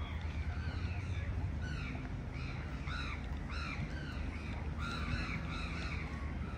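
Several crows cawing, a quick run of harsh calls that overlap one another throughout, over a steady low rumble.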